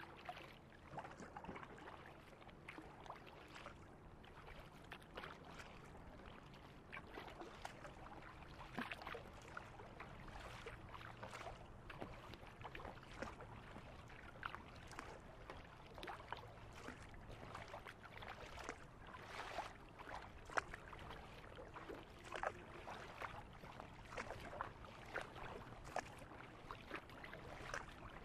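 Water splashing and lapping against the bow of a plastic Rainbow Oasis 430 kayak as it is paddled across a lake: a faint, irregular run of small splashes, one or two a second.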